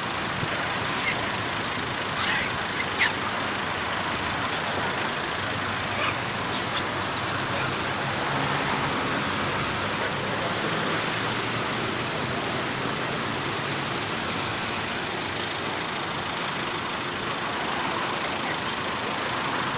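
Steady outdoor background noise with a few short high-pitched animal calls, several between about one and three seconds in and a couple more around six to seven seconds.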